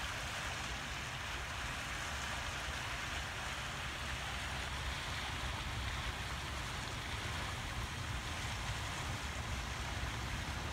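Steady outdoor noise: an even rushing hiss over a low, fluctuating rumble of wind buffeting the microphone.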